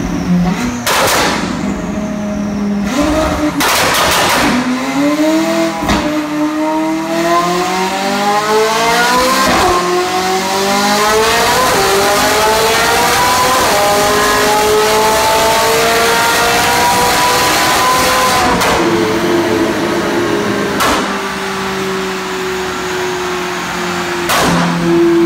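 McLaren 675LT's twin-turbo V8, breathing through a Secret Weapon exhaust, revving under load on a dynamometer. The pitch climbs in several steps with short drops between them, then falls away steadily from about 18 seconds, with a handful of sharp cracks from the exhaust along the way.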